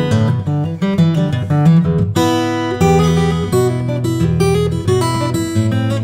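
Background music: a guitar playing a run of plucked and strummed notes.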